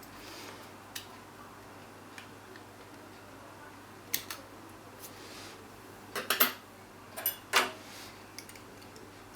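Small hard parts of an AIO liquid cooler's mounting hardware clicking and clinking as it is converted from Intel LGA 1150 to AMD AM4 mounting: scattered light ticks, then two quick runs of louder clacks in the second half.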